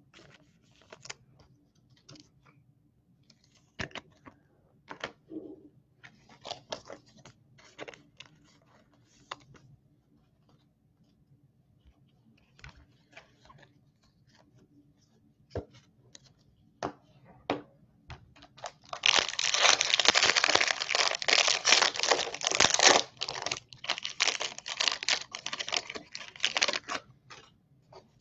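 Trading cards being handled, with scattered light clicks and snaps. After that, a foil wrapper from a Bowman Draft card pack loudly crinkles and tears for about eight seconds in the second half.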